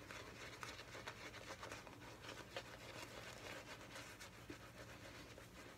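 Faint, soft crackling of a shaving brush working wet, thick lather on the face, with irregular small ticks.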